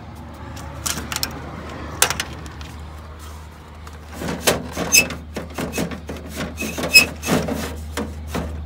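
Handling noises from hands working a wiring connector and cardboard around a heater blower fan in a bus's front heater compartment: scattered clicks and taps at first, then a dense run of knocks, clicks and rubbing in the second half, over a steady low hum.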